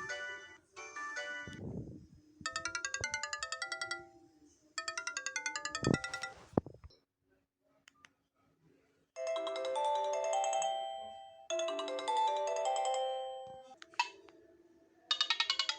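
Sony Ericsson mobile phone ringtone melody playing in short repeated phrases of electronic tones, changing in sound from phrase to phrase. Some phrases pulse rapidly and others hold longer notes. A dull thump comes about six seconds in, followed by a pause of about two seconds.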